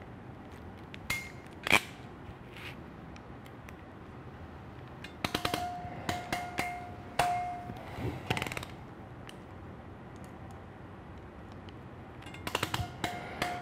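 Ratcheting crimp tool crimping Anderson Powerpole contacts onto wire ends: a few single clicks, then bursts of rapid ratchet clicks, each with a short metallic ring, as the handles are squeezed shut and released, several times over.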